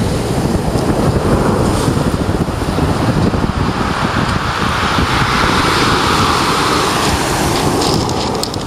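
Strong wind buffeting the microphone over surf breaking and washing up a shingle beach; the wash of the waves swells louder about halfway through.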